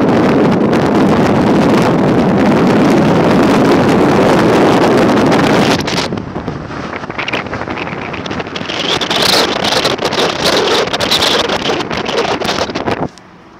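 Wind buffeting a phone microphone at the open window of a moving car, mixed with road noise; loudest for the first several seconds, then easing, and cutting off suddenly near the end.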